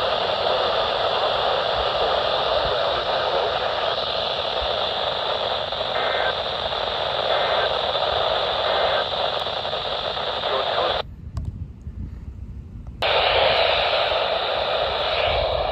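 Radio receiver hissing with heavy static from poor reception, steady throughout. The hiss cuts out abruptly about eleven seconds in for around two seconds, then comes back.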